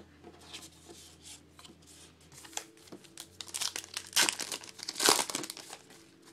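A 2012 Topps Gypsy Queen baseball card pack wrapper being torn open and crinkled by hand, an uneven run of crackles with the loudest tearing about four and five seconds in.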